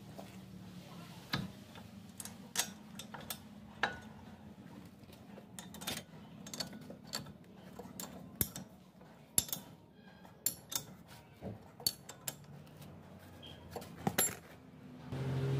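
Scattered sharp metallic clicks and clinks of hand tools and brake parts being handled at a car's rear disc brake caliper, over a faint low hum.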